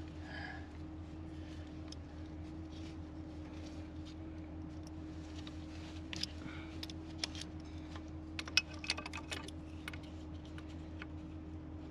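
Light clicks and taps of hand tools on metal hose fittings as a burst hydraulic hose is taken off a tractor. They are mostly bunched between about six and ten seconds in, over a steady low hum.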